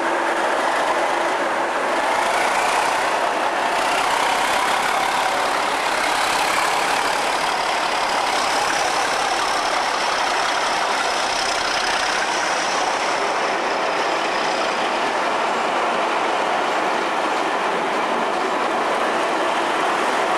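English Electric Class 37 diesel locomotive and its coaches passing slowly: a steady engine drone and rolling wheel noise, with a thin high whine in the middle.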